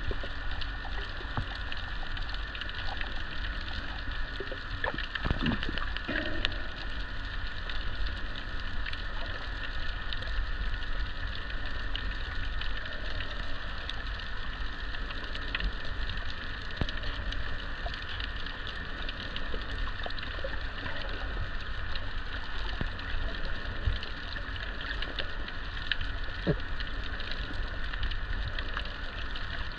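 Underwater ambience picked up by a submerged camera: a steady muffled rumble and hiss with constant fine crackling, like rain on a surface, and a few louder knocks about five seconds in.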